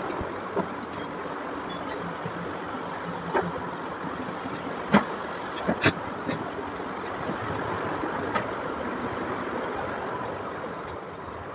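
Steady rushing background noise with a few short, sharp knocks scattered through it, the loudest about five seconds in.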